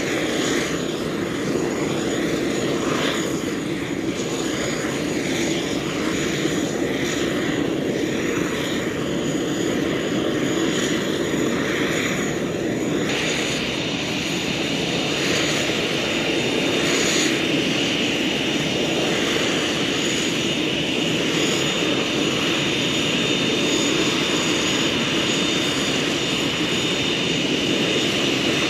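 Three-engined business jet taxiing, its turbofan engines running with a steady rush. About halfway through a high turbine whine comes in and holds as the jet draws closer.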